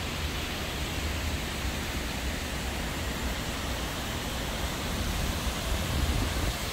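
Steady rushing of water cascading down the stepped walls of a large terraced fountain, with a low rumble underneath.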